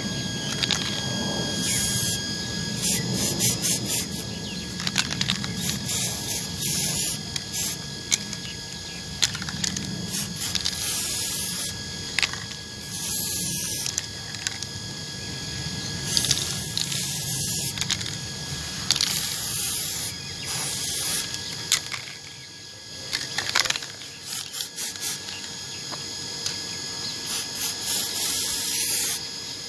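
Aerosol spray-paint can hissing in a series of short bursts, each a second or so long, as white paint is sprayed onto a diecast model car body.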